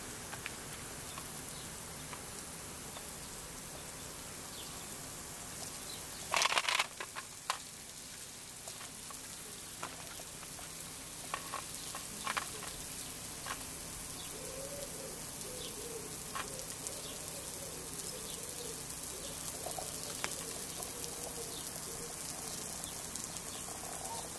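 Puppy playing with toys on gravel over a steady outdoor hiss: scattered small knocks and scuffs, with a short loud rattle about six seconds in. A faint wavering whine runs through the second half.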